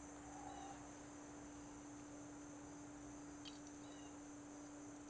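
Near silence: a quiet outdoor background with a steady high insect drone and a low steady hum, and a faint click about three and a half seconds in.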